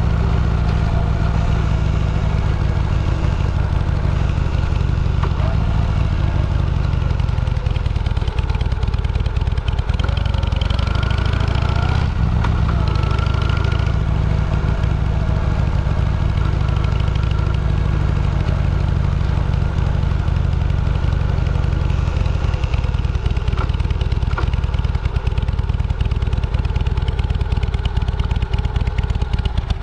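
Vehicle engine running on the move with a steady low rumble; its pitch rises for a few seconds in the middle.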